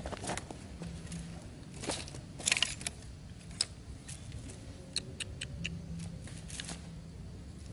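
Bamboo sticks and a wicker basket being handled: light rustling with scattered clacks of sticks knocking together, bunched about two and a half seconds in and again about five seconds in.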